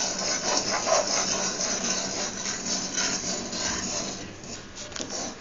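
Steel ladle stirring and scraping chilli powder, chat masala and salt frying in oil in a black iron kadai: continuous scraping of metal on the pan with many small clicks and knocks. The spices are being fried off so the chilli loses its raw taste.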